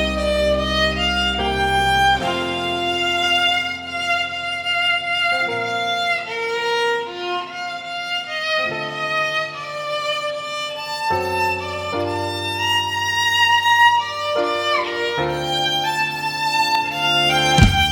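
Violin playing a slow, sustained melody over a backing track of low held chords that change every two to three seconds.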